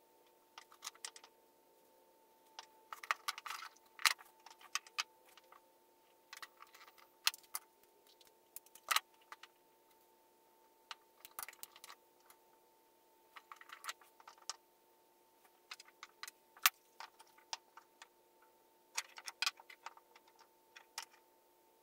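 Steel router bits clinking as they are handled and set down on a wooden board and benchtop, along with the clatter of their plastic packaging, in irregular clusters of sharp clicks. A faint steady hum runs underneath.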